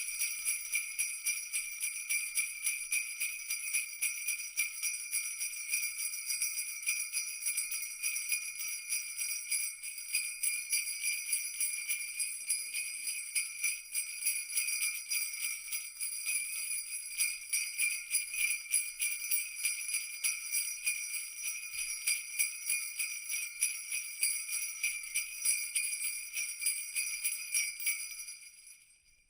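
Jingle bells shaken continuously in a steady rhythm, fading out near the end.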